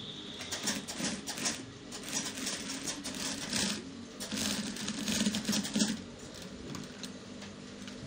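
Industrial flat-bed sewing machine stitching in several short runs, a fast needle clatter over a low motor hum, over the first six seconds; after that only the low hum remains.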